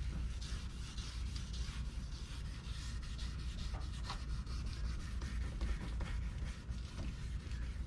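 Fine 3000-grit wet sandpaper on a hand-held pad rubbing over a plastic headlight lens in quick, repeated strokes, smoothing off the yellowed, oxidised surface.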